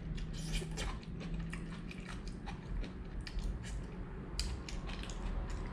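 Cooked crab being eaten by hand: a run of small clicks and crackles of shell being picked apart with the fingers, with biting and chewing as the meat goes to the mouth.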